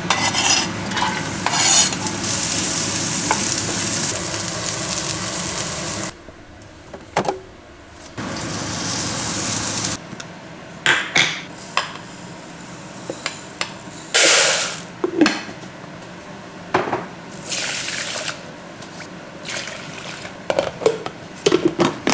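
Chopped onion hitting hot oil in a wok and sizzling loudly for several seconds, then sizzling again briefly after a break. After that come quieter kitchen handling sounds: short knocks, scrapes and clinks of bowls and a plastic container lid.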